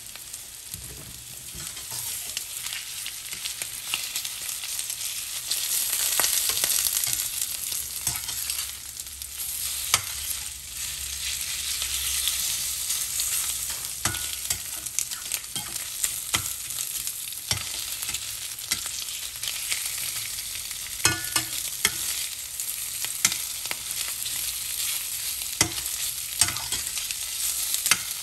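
Marinated chicken pieces sizzling in hot oil in a stainless steel skillet, with a metal spatula scraping and clinking against the pan as the pieces are stirred and turned.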